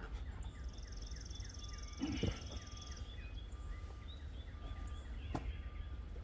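Birds singing: a run of short, repeated down-slurred chirps and a buzzy trill from about half a second to three seconds in, over a steady low rumble. Two sharp knocks, one about two seconds in and one near the end.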